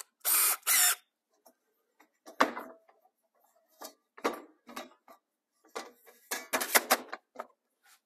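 A cordless drill and a long aluminum door-seal strip being handled on a tabletop: two short rasping bursts at the start, then scattered knocks and a quick clatter of clicks and knocks near the end as the drill is set down and the strip is moved against the table.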